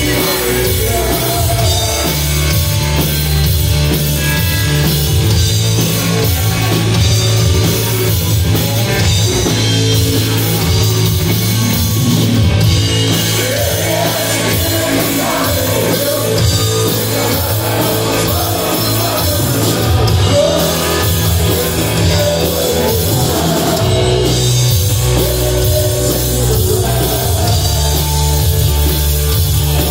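Live rock band playing loud, with electric guitar, bass guitar and drum kit, and a lead vocal over the band, most plainly in the middle.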